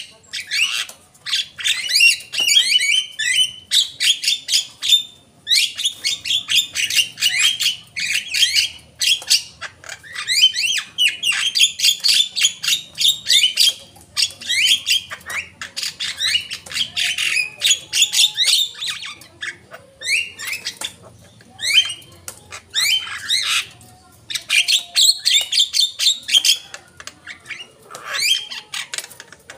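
Javan myna (jalak kebo) singing a long, rapid chattering song of harsh squawks and sliding whistled notes, in dense runs broken by short pauses.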